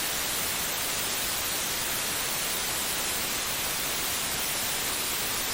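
Steady white noise: an even, unbroken hiss, strongest in the high range, with no beat or tone in it.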